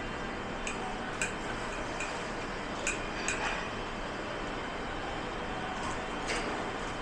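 Dishes and cutlery clinking and knocking against each other in scattered light strikes, about eight, over a steady background noise.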